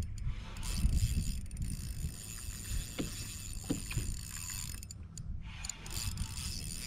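Spinning reel being worked as a hooked bonefish is played on the line: a steady high whine with a few clicks from the reel's gears. Low wind rumble on the microphone underneath.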